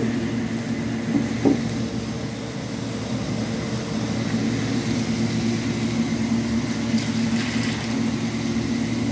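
Steady low machine hum, with a single knock about a second and a half in and a brief rattle near the end.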